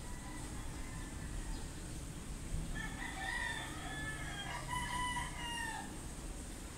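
A rooster crowing once, about three seconds in: one long call of about three seconds that slides down at the end, over a steady background hiss.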